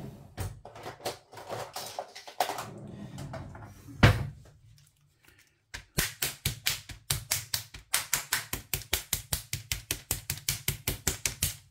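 A knife point stabbing again and again through the plastic film lid of a frozen ready-meal tray: a fast, even run of sharp taps, several a second, through the second half. Before that come rustling of the tray being handled and one sharp knock.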